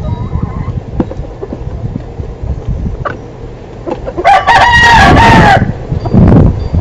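Rooster crowing once, a loud call of about a second and a half starting about four seconds in, over the low rumble of wind on the microphone.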